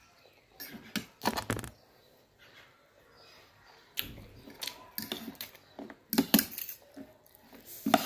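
Eating noises from a mouthful of instant noodles about a second in, then, from about four seconds in, repeated sharp clinks and scrapes of a metal fork and spoon against the plate as the noodles are mixed.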